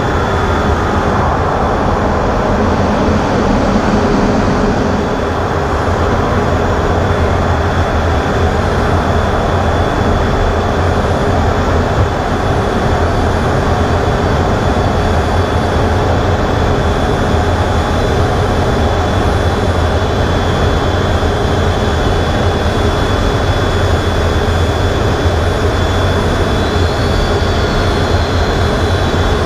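Jet engine and airflow noise heard inside a fighter jet's cockpit in flight: a steady low rumble with a thin, steady high whine above it.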